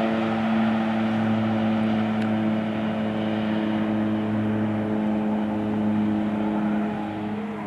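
Pilatus PC-7 turboprop trainers flying in formation. Their propellers and Pratt & Whitney PT6A engines make a steady, even drone with a low hum, which fades near the end.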